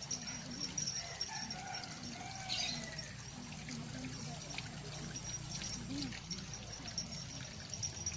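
Water trickling steadily into a fish pond, with faint bird calls over it.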